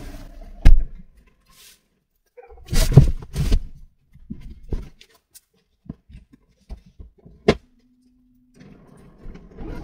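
Knocks and thumps of a small wooden cabinet being lifted out of a car and handled, with a loud thump under a second in, a cluster of heavier ones around three seconds, lighter taps after that and a sharp click about three quarters of the way through.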